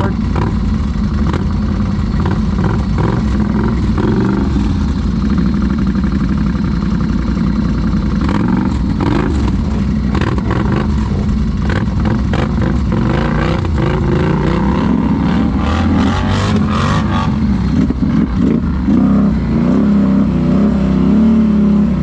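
ATV engine running through thick brush, with a cluster of short knocks and scrapes in the middle and the engine revving up near the end.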